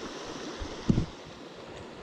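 Shallow creek water running over a riffle, a steady hiss, with one short low thump on the microphone just under a second in.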